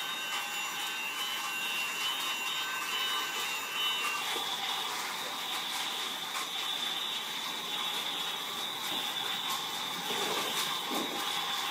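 Battery-powered Thomas toy train running on blue plastic track: a steady motor whirr with the rattle of its wheels and carriages.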